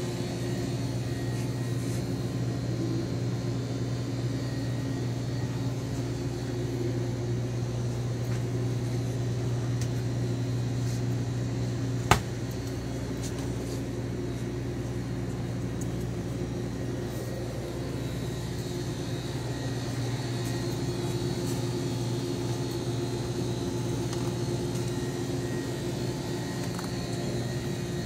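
Steady low mechanical hum of a store's cooling and air-handling equipment, with one sharp click about twelve seconds in.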